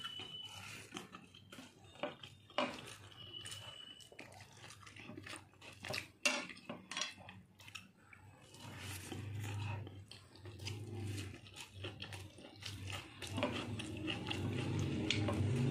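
A hand eating rice and curry from a plate: fingers scraping and squishing food against the plate, with many short clicks and taps on the plate, a couple of brief light rings early on, and chewing with a full mouth that grows denser in the second half.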